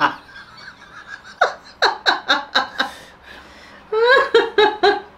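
A man laughing hard in two runs of short ha-ha bursts, the first about a second and a half in and the second about four seconds in.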